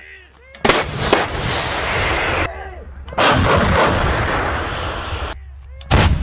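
Heavy artillery guns firing: a sharp blast about half a second in, followed quickly by a second, another about three seconds in, and a third near the end. Each is followed by a long rolling rumble, two of which cut off abruptly.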